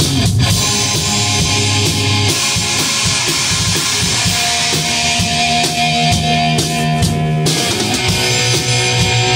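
1987 Explorer electric guitar with Gibson Burstbucker pickups playing a rock riff, with a full drum kit keeping the beat.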